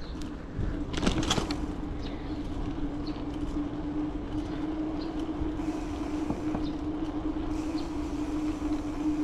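A bicycle rolls along a tiled sidewalk with steady rolling and wind noise and a few light clicks. Over this runs a steady hum held at one pitch, which stops abruptly at the end.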